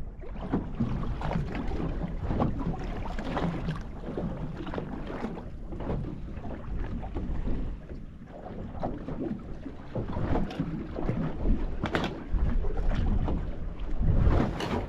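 Choppy sea slapping and lapping against a small boat's hull, with wind buffeting the microphone. It gets louder in stretches about ten seconds in and again near the end.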